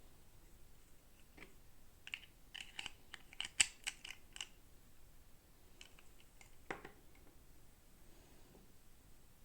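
Light clicks and taps of small plastic toy pieces and packaging being handled: a quick run of clicks about two seconds in, lasting a couple of seconds, and one more click near seven seconds.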